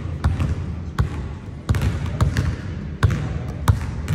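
A basketball dribbled on a hardwood gym floor: irregular thumps, about two or three a second.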